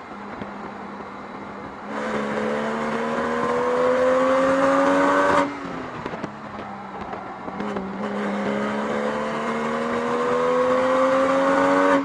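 A Porsche 996's rebuilt 3.6-litre flat-six engine pulling under acceleration, its pitch climbing steadily for a few seconds. It drops sharply about halfway through, then climbs again and cuts off at the end.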